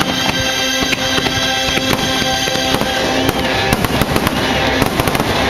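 A fireworks display: aerial shells bursting and crackling in quick, irregular succession, many bangs a second, with music playing throughout.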